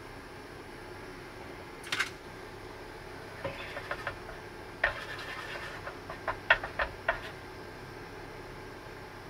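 An egg cracked sharply against an electric hot plate about two seconds in, then a run of light clicks and taps of chopsticks on the plate's pan as the egg is worked, with a faint sizzle among them.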